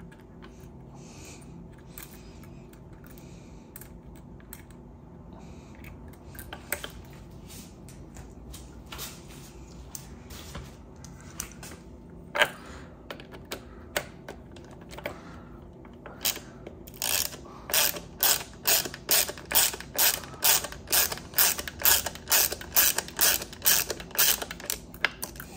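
Hand ratchet driver clicking as it turns a mounting bolt into a Shimano Dura-Ace hydraulic disc brake caliper. At first only a few scattered clicks, then from about two-thirds of the way through a steady run of ratchet strokes, about two to three a second.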